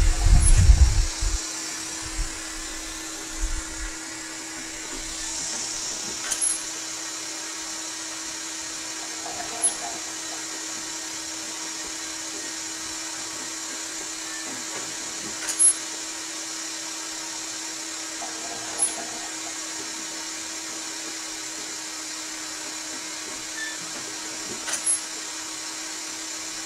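Homemade pneumatic ventilator running: a steady mechanical hum, with a sharp click about every three seconds as its valve linkage cycles through a breath.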